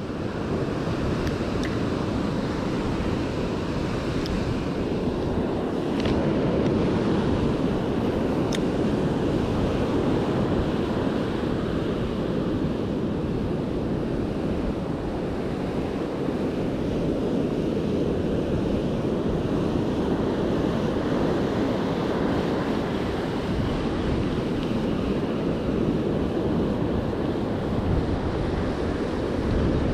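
Ocean surf breaking and washing up the beach, a steady rushing wash, with wind buffeting the microphone.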